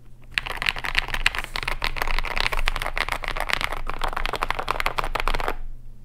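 Fast typing on a KBD67 Lite R2 mechanical keyboard with Akko Matcha Green switches, SA keycaps and a polycarbonate plate: a dense, continuous run of keystroke clacks. It starts about half a second in and stops shortly before the end.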